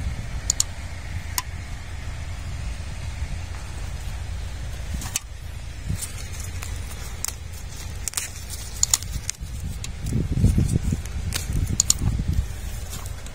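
Plastic mulch sheet crinkling and crackling as a hot, charcoal-filled metal can is worked over it to burn planting holes. Sharp clicks are scattered through, and there is a cluster of low thumps about ten seconds in, over a steady low rumble of wind on the microphone.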